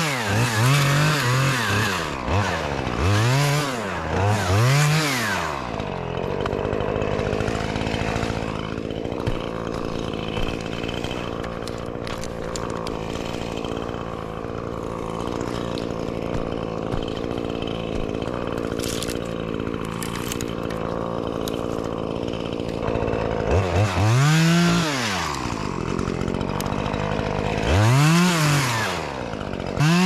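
Two-stroke top-handle chainsaw revved up and back down four times in quick succession, then idling steadily, then revved twice more near the end.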